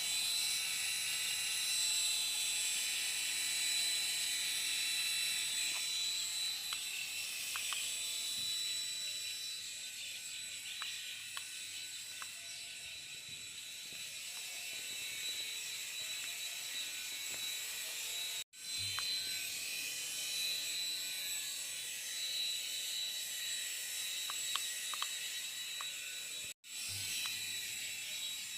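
Toy mini helicopter's small electric motor and rotor running with a steady high whine. The sound cuts out for an instant twice, about two-thirds of the way through and near the end.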